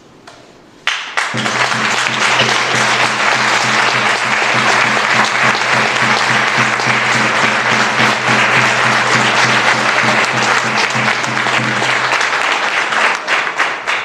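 Audience applauding: many hands clapping, starting suddenly about a second in and dying away near the end, with a steady low tone held underneath for most of it.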